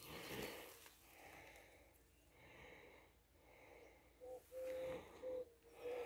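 A dove cooing in repeated phrases of short-long-short notes, starting about four seconds in. Before it, only faint soft rushes of noise.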